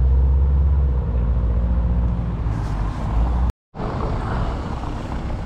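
A Subaru Impreza wagon's flat-four engine running with a loud, deep note as the car pulls away, easing off slightly. It cuts off abruptly after about three and a half seconds, giving way to quieter street noise.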